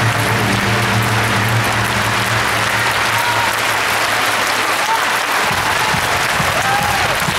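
Audience applauding steadily, with the music's last low sustained note fading out in the first two or three seconds.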